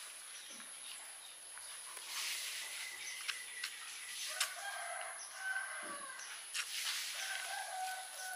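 A rooster crowing twice in the second half, each crow drawn out for about two seconds, over a steady faint high hiss.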